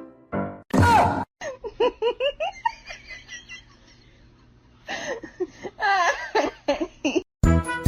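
Laughter in runs of short repeated 'ha' bursts, with a quieter pause in the middle, cut between bits of piano music that return near the end.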